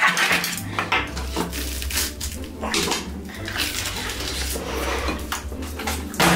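Crisp crunching and chewing as bites are taken from a whole fried chicken, a rapid run of sharp crackles.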